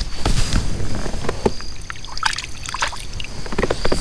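Scattered knocks and bumps on a plastic fishing kayak with light water sounds, as a caught sunfish is let go and the angler shifts in the seat. Crickets chirr steadily underneath.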